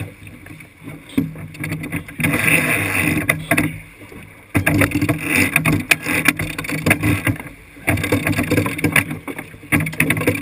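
Water rushing and splashing along the hull of a heeled sailboat under sail, coming in loud surges a second or more long with quieter dips between, along with a steady low rumble and occasional sharp knocks.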